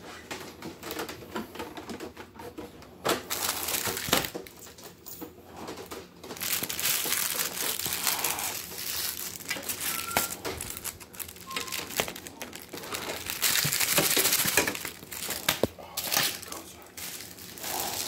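Plastic packaging bags crinkling and rustling in uneven stretches as packed parts are handled, with a few sharp knocks and clicks.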